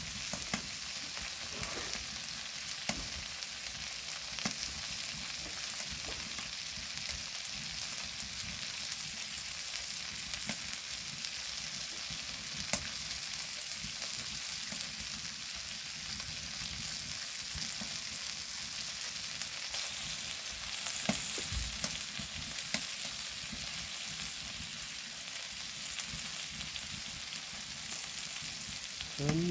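Meat sizzling steadily on a hot flat stone grill, with a sharp pop now and then as the fat spatters.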